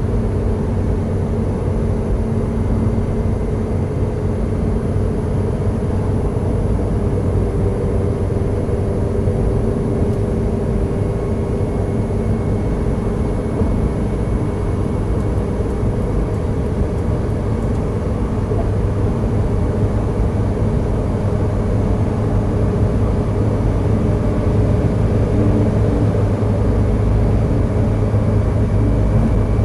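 Steady road and engine drone of a car cruising on a highway, heard from inside the cabin while driving through a road tunnel. It grows slightly louder over the last several seconds.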